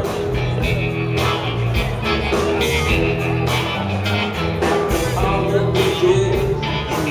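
Live rock band playing a bluesy rock song: electric guitars, electric bass, drums and keyboards.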